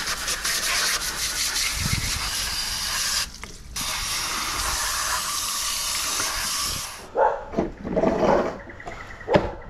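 A garden hose spray gun jets water steadily into the opened plastic housing of a garden shredder, washing out its cutting chamber, with a brief pause about three seconds in. The spray stops about seven seconds in, followed by a few knocks and scrapes as the plastic shredder is handled.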